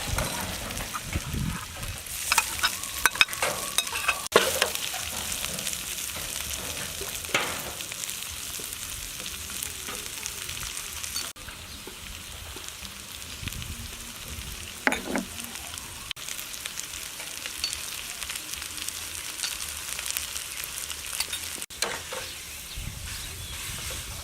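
Food sizzling steadily over the heat, with scattered sharp clicks and knocks, most of them in the first few seconds.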